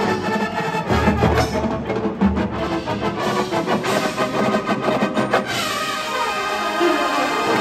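Drum and bugle corps playing live: brass with marching percussion and a front ensemble. Dense drum strokes and low bass-drum hits fill the first five seconds or so, then the sound settles into held brass tones.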